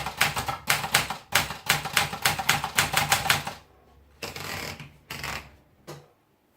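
Olympia Splendid 33 manual typewriter being typed on, with crisp key strikes at about five a second for over three seconds. Typing stops, then come two longer scraping sounds and a single final click.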